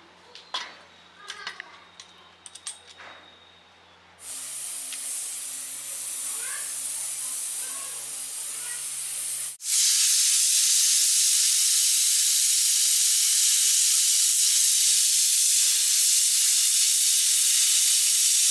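A few light clicks as the weight is set on a pressure cooker's vent, then steam hissing out of it, turning into a loud, steady full blast of the cooker's whistle about halfway through. The whistle is blowing because the cooker has come up to pressure.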